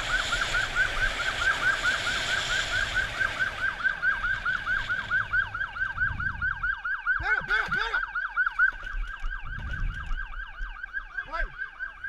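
Police motorcycle siren in a fast yelp, about five warbles a second, over wind and engine noise that dies away about four to five seconds in as the bike slows and stops.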